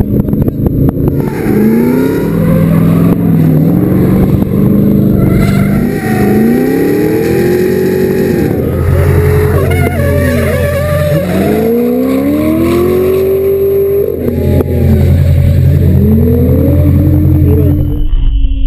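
Corvette V8 being revved hard and lifted off again and again while drifting, its pitch rising and falling in repeated sweeps, heard from on board the open-topped car.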